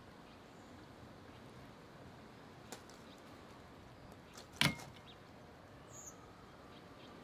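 A wiper arm's hook being fitted around the pivoting bridge of a Bosch Aerotwin blade's plastic connector: a faint tick, then a single sharp click a little past halfway, over a quiet outdoor background.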